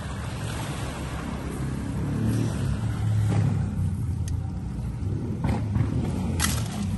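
Steady low rumble that swells about two to four seconds in, with a few faint clicks.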